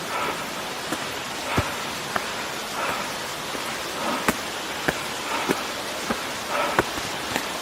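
Steady rush of Ōdaru Falls and its stream, with footsteps on the path about one every 1.3 seconds and a few sharp clicks among them.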